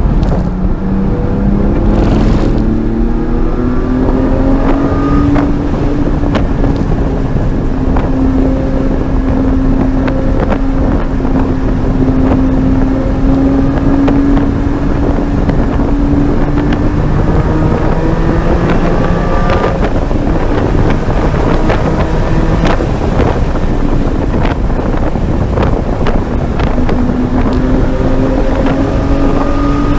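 Porsche Cayman GT4's flat-six engine under hard acceleration, heard from inside the cabin over wind and road noise. It climbs in pitch after a gearchange at the start, holds high and steady, falls about seventeen seconds in, then climbs again near the end.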